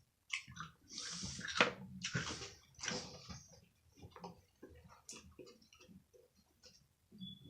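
Close-up eating sounds of a person chewing a sandwich: wet mouth noises and crunching, busiest in the first few seconds, then thinning to small smacks and clicks.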